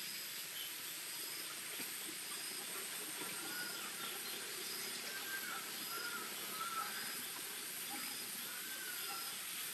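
Forest ambience: a steady high insect drone, a short high chirp repeating about once a second, and a warbling bird call several times from about four seconds in.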